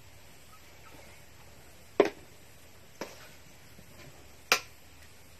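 A ladle knocking against a cooking pot three times: sharp knocks about two seconds in and again near the end, with a lighter one between.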